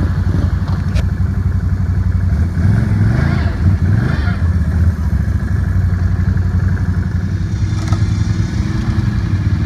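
ATV engines running and revving as the quads churn through a muddy water hole. Engine pitch rises and falls about three to four seconds in.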